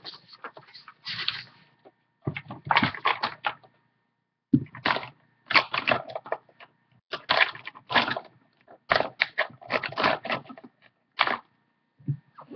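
Rustling and knocking close to the microphone, in clusters of quick clicks with short pauses between them: objects being handled on a wooden desk.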